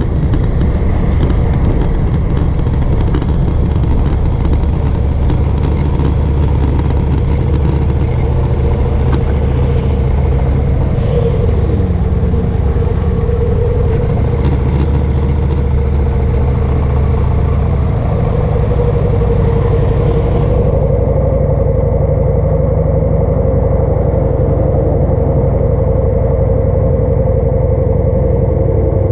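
Motorcycle engine running as the bike slows and comes to a stop, then idling steadily. Wind noise on the microphone cuts off about two-thirds of the way through as the bike halts.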